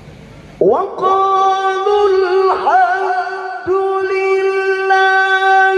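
Male Quran reciter chanting tilawah into a microphone. About half a second in he sweeps up into a long, high held note with ornamented turns, breaks off briefly in the middle, then holds the note again. He is pushing a hoarse voice.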